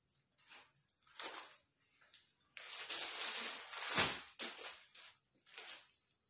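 Rustling and swishing of garments being handled and pulled from a pile, in irregular swishes with a denser stretch in the middle. A sharp thump about four seconds in is the loudest sound.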